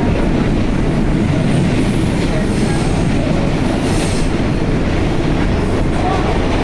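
New York City subway train running, heard from inside the car: a loud, steady rumble of wheels on rail. A faint high wheel squeal comes through around the middle.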